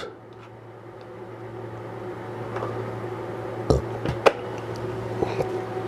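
One-handed bar clamp being tightened, its trigger giving two sharp clicks about half a second apart partway through and a couple of lighter ticks after, over a steady low hum.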